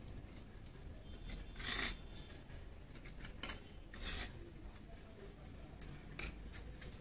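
Potting soil being scraped and dug over lightly by hand to loosen it, in short rasping scrapes, the loudest two about two and four seconds in.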